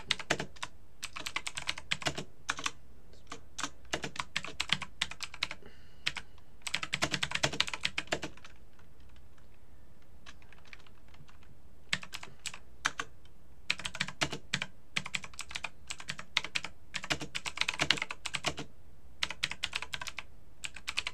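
Typing on a computer keyboard: runs of quick keystrokes, with a pause of a few seconds about eight seconds in.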